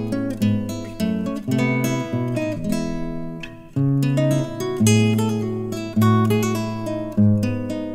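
Background music: acoustic guitar playing and strumming chords.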